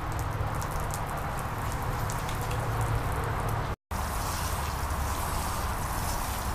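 Hose-fed lawn sprinkler spraying, a steady hiss of water jets with drops pattering onto wet ground. The sound cuts out for a moment about two-thirds through.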